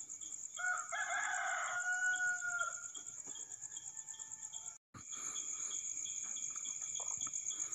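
A rooster crowing once, about two seconds long, over a steady chorus of crickets trilling. The sound drops out for a moment about five seconds in.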